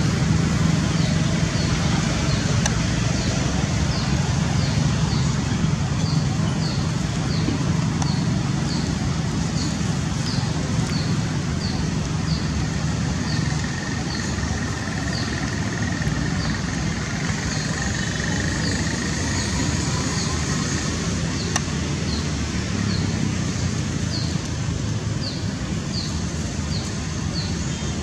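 Steady outdoor background noise with a low rumble like road traffic, and a short, falling, high chirp repeating about three times every two seconds.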